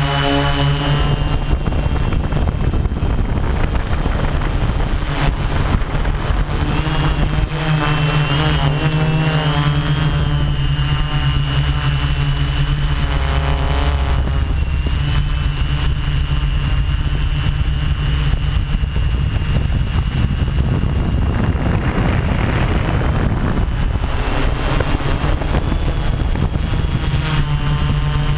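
RC drone's electric motors and propellers whining and humming, heard from on board the craft. The pitch wavers up and down a few times in the middle, then holds steady.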